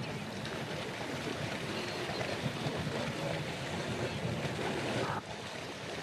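A steady rushing noise that drops off abruptly about five seconds in.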